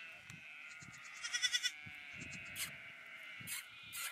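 Sheep bleating: one loud, quavering bleat about a second in, over fainter steady bleating from the flock, with a few short clicks near the end.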